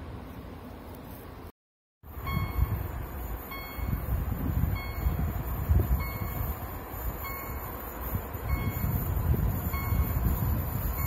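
Level crossing warning bell ringing, single dings a little over a second apart, over wind buffeting the microphone. The sound drops out briefly about a second and a half in, and before that there is only wind noise.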